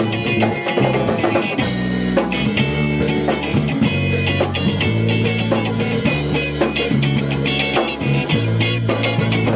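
Small rock band playing live, with electric guitar, bass and drum kit. The band comes in fuller and heavier about one and a half seconds in.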